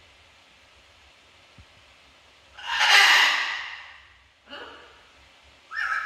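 Blue-and-gold macaw vocalizing with raspy, breathy calls: one loud call about two and a half seconds in, then two shorter calls near the end, the last rising in pitch.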